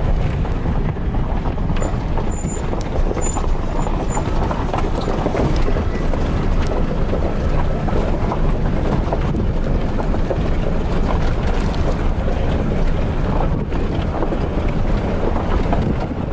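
Steady rumble of a vehicle driving on a rough dirt road, heard from inside the cab, with many small rattles and knocks throughout.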